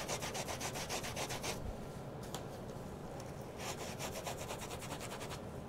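Damp sponge scrubbed rapidly back and forth over a stencil on a wet acrylic-painted panel, lifting paint through the stencil. The scrubbing goes at about seven strokes a second, softens about a second and a half in, and picks up again near four seconds.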